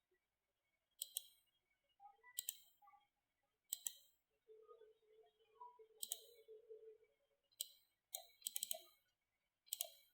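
Computer mouse clicks, about eight single clicks at uneven intervals, some close together around eight to nine seconds in, over near silence.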